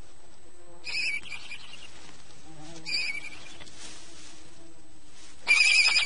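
Barn owl chicks calling in the nest: a short call about a second in, another about three seconds in, and a longer, louder call near the end.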